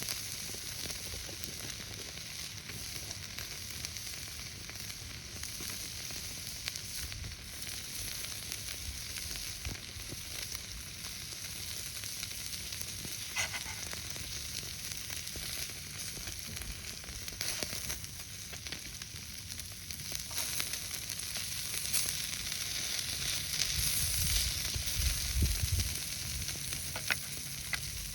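Seasoned beef skirt steak sizzling steadily on a small iron griddle plate, with a few sharp clicks and a low rumble toward the end.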